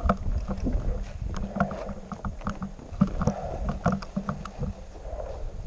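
Footsteps in snow at a walking pace, a short knock roughly twice a second over a low rumble.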